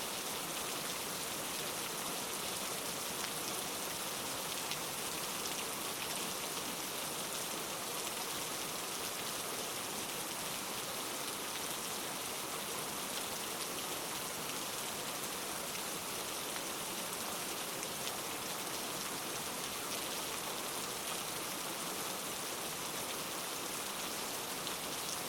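Steady rain falling and pattering on a surface, an even hiss of many drops with no breaks.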